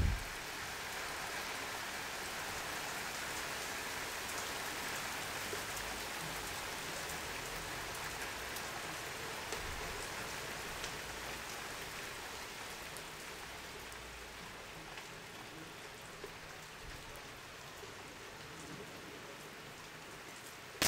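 Steady rainfall during a thunderstorm: an even hiss of rain with faint drop ticks, easing off a little over the second half.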